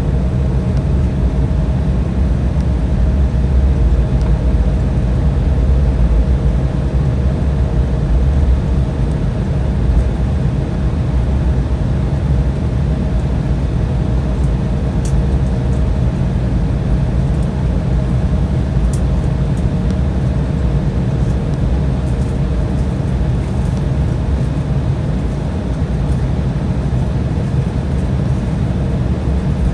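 Steady cabin rumble of an Embraer 175 taxiing after landing, its two GE CF34-8E turbofans at idle, heard from inside the cabin, with a faint steady hum over it. A few faint clicks around the middle.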